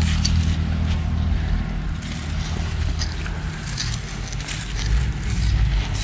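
A steady low engine hum that fades about two seconds in, leaving a low rumble, with scattered light scrapes and clicks.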